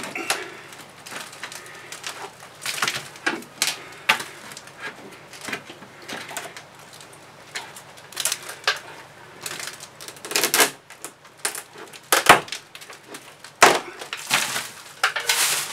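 Rotted fir deck beam and planking being pried and pulled apart overhead with a screwdriver and by hand: irregular cracking, splintering and scraping of soft, rotten wood, with a few sharper cracks in the second half.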